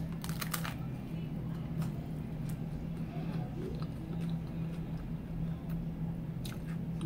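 A hard corn taco shell crunching as it is bitten, a quick cluster of crunches in the first second, then chewing with a few scattered crunches and another cluster near the end. A steady low hum runs underneath.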